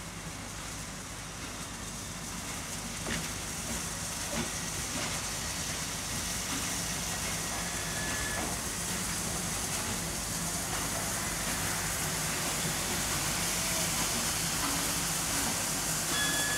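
Pt47 steam locomotive hissing steam, the hiss growing gradually louder.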